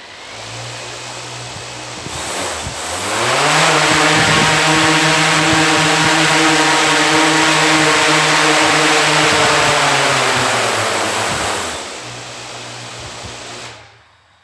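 DJI Inspire 2 quadcopter's four motors and propellers starting at idle, then rising in pitch to takeoff power with a loud rush of prop wash. They run steadily for about eight seconds, drop back in pitch to idle, and stop near the end.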